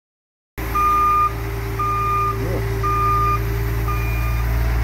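A tipper truck's reversing alarm beeping about once a second over its diesel engine running, as the truck backs along with its tray raised spreading gravel. It starts suddenly about half a second in.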